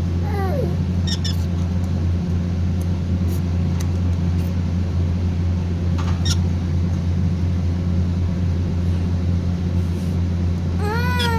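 Pet parrot giving a few short calls: a falling call about half a second in and an arched squawk near the end, with a few sharp clicks between. All of it sits over a loud, steady low hum.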